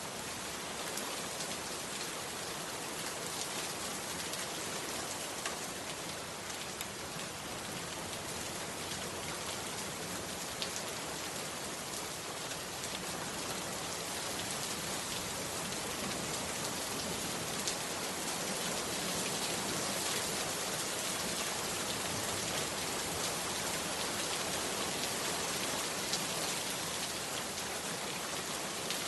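Heavy rain falling steadily: a dense hiss peppered with fine drop ticks, growing a little louder in the second half.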